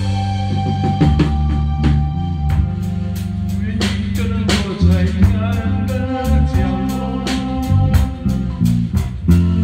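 A band playing an instrumental passage with no vocals. A drum kit keeps a steady beat with snare and kick, over moving bass notes and held higher notes.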